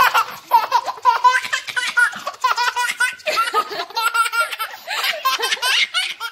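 Young child laughing hard while being tickled: rapid, high-pitched bursts of laughter, one after another.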